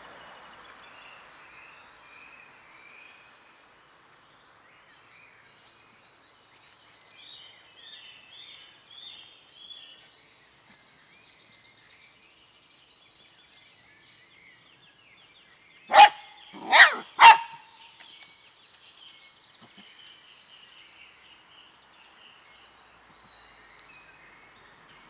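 A dachshund barking three times in quick succession about two-thirds of the way in, over faint bird chirping, with a few louder bird calls earlier on.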